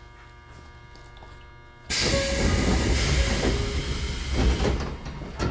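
Doors of a Tobu 20400 series electric train opening at a station stop: a sudden burst of hissing noise about two seconds in, which then stays loud.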